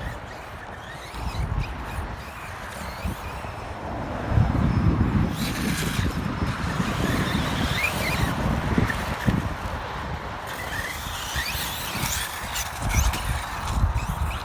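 Brushless electric motor of a radio-controlled truck whining at high pitch, rising in pitch several times as it accelerates, over low buffeting rumble of wind on the microphone.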